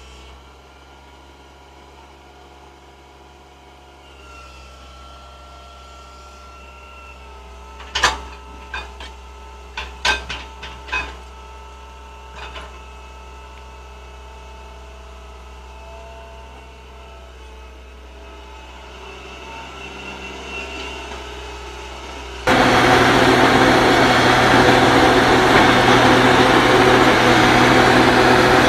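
Hydraulic excavators' diesel engines running steadily, with a cluster of sharp knocks about eight to eleven seconds in. Near the end a much louder, closer excavator engine takes over.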